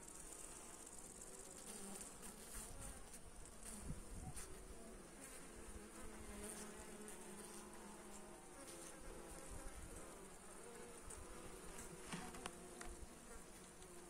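Honeybees buzzing at an open hive: a faint, steady hum whose wingbeat tones waver in pitch.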